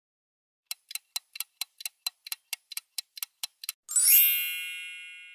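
Countdown-timer sound effect: a clock ticking about four times a second for some three seconds, then a bright bell ding that rings on and fades out.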